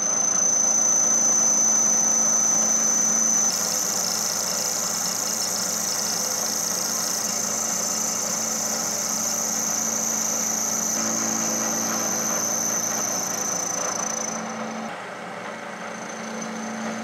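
Vertical milling machine running, its new 3/8-inch four-flute end mill taking a light finishing cut of a few thousandths along a flat of a stainless steel bolt head. A steady high whine runs throughout, with added cutting hiss from about three and a half seconds in until about fourteen seconds.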